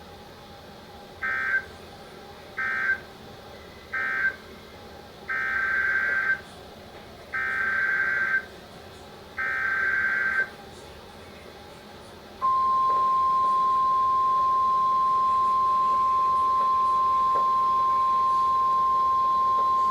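NOAA Weather Radio alert signalling: three short buzzy data bursts, the end-of-message code closing the previous warning, then three longer data bursts, the SAME header of a new warning. After a pause of about two seconds, the steady single-pitch warning alarm tone comes on about twelve seconds in and holds, announcing a new severe thunderstorm warning.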